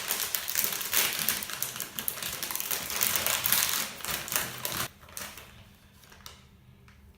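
Plastic wrapper of a Haribo gummy bear bag crinkling and crackling as it is handled and opened, stopping abruptly about five seconds in.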